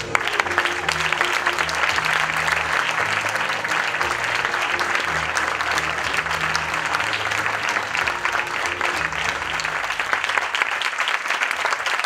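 Theatre audience applauding, breaking out suddenly and continuing, with low music notes playing underneath; the applause eases off near the end.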